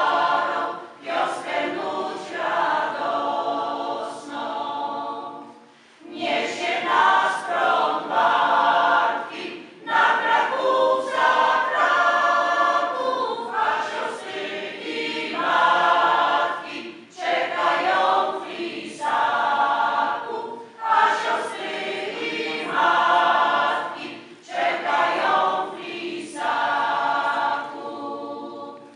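Mixed choir of women and men singing unaccompanied, in phrases of a few seconds with brief breaths between lines.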